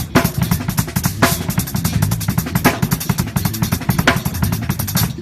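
Drum kit played in a fast solo: rapid bass drum and snare strokes packed tightly together, with cymbal crashes about every second and a half.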